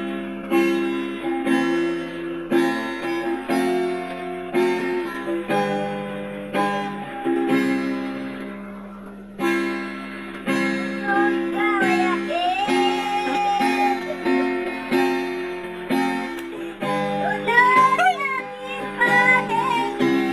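Acoustic guitar strummed in chords. The strumming fades briefly about nine seconds in and then starts again, and a voice sings along over the second half.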